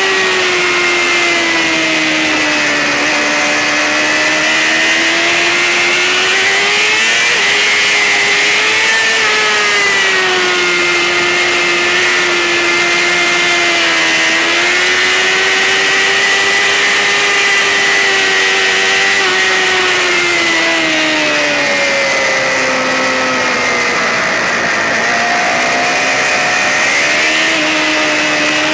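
Racing sportbike engine running at high revs, its pitch sagging and climbing again with the throttle. The pitch drops lowest about three-quarters of the way through, then rises near the end, over a steady hiss.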